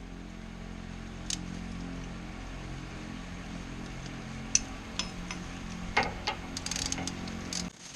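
Scattered metallic clicks and knocks of hand tools and parts being handled while changing the engine oil and filter, over a steady low hum. The clicks come closer together from about six seconds in.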